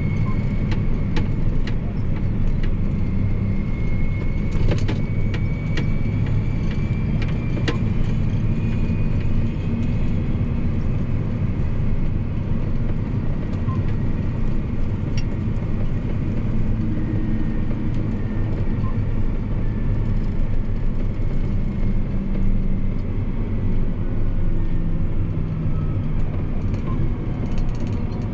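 John Deere 8245R tractor's six-cylinder diesel engine running steadily under way, heard from inside the cab, with a faint high whine that rises slightly in pitch over the first ten seconds. A few light clicks or rattles come about five and eight seconds in.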